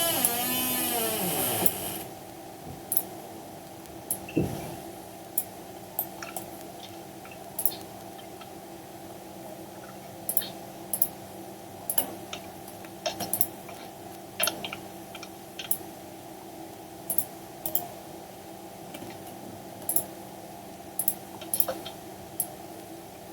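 Scattered, irregular clicks of a computer mouse and keyboard over a steady electrical hum. A louder wavering sound falls in pitch for about the first two seconds, then stops.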